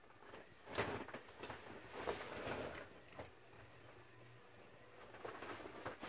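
CEC Georgian 303D ceiling fan running, heard faintly under irregular rustles and a few soft taps.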